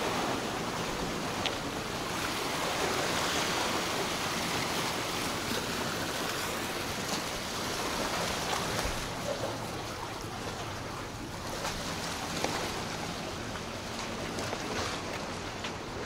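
Small sea waves washing and splashing against the boulders of a rock breakwater, a steady rush of surf that swells and eases.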